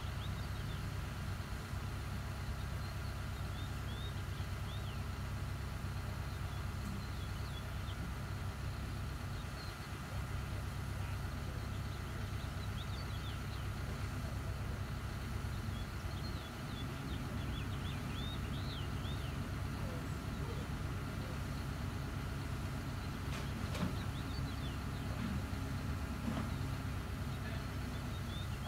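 Hyundai 140 excavator's diesel engine idling steadily, with small birds chirping now and then.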